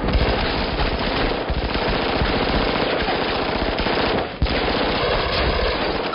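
Rapid automatic gunfire from compact submachine guns, dense overlapping shots with a brief lull about four seconds in.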